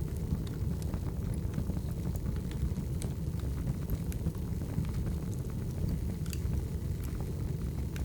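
Wood fire burning: a steady low rumble of flames with scattered, irregular crackles and pops from the burning logs.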